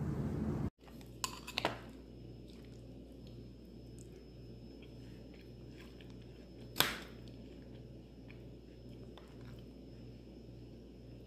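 Steady room noise cuts off under a second in. A quiet room follows, with a faint low hum pulsing about twice a second, a few soft clicks and taps, and one sharp click about seven seconds in.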